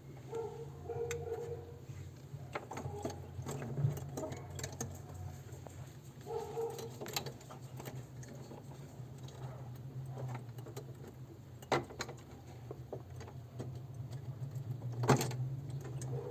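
Scattered clicks and taps of hands and tools handling the refrigerator's plastic parts and wiring, with a sharper click about 12 seconds in and a louder one near the end, over a steady low hum.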